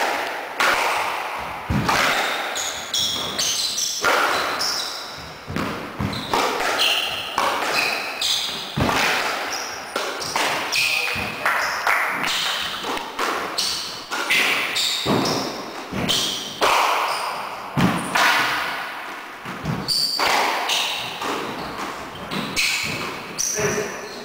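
Squash rally: the ball struck by rackets and smacking off the court walls about once a second, each hit echoing, with brief squeaks of shoes on the wooden floor.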